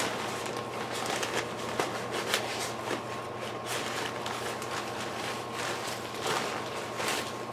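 Irregular rustling and handling noise with many small clicks and taps, over a faint steady high hum.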